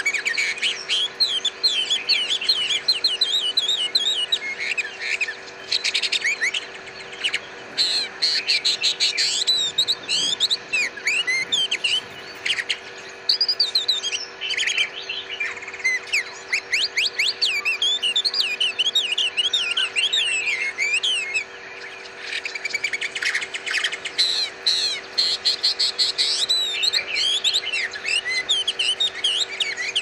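Many small caged songbirds chirping and singing at once, a dense chorus of quick overlapping high chirps and trills with a few brief lulls.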